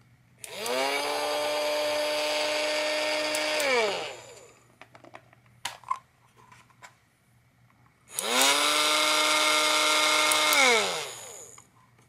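Battery-powered toy washing machine's small electric motor whirring, run twice for about three seconds each: it spins up quickly to a steady high hum, then falls in pitch as it winds down. A light click comes between the two runs.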